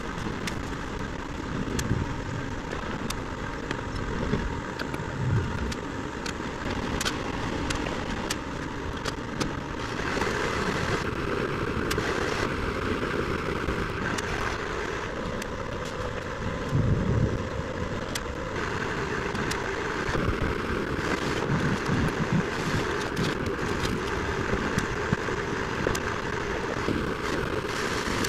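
Sped-up construction-site sound of a concrete wall pour, 100 times faster than real time: a dense, continuous mechanical wash from the concrete pump truck and mixer truck engines, with many short clicks and knocks.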